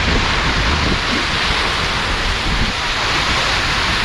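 Sea surf rushing steadily against the shore, with wind rumbling on the microphone.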